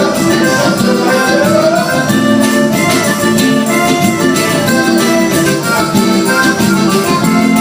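Live band music with accordion, in a steady-beat Latin American folk style.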